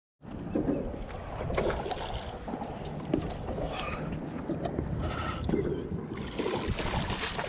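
Wind buffeting the microphone over water lapping at a small boat, with scattered knocks of the camera being handled and a short high squeak about five seconds in.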